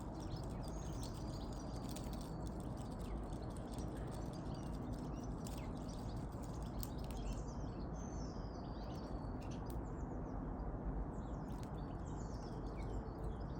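Small songbirds chirping and twittering, with a few high whistled notes and quick falling calls, over a steady low rumble.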